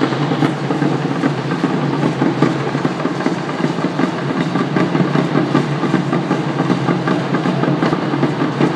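Drumming and the shaking of many dancers' ankle rattles in an Aztec-style dance, a dense, steady, rattling beat that echoes around a large indoor arena.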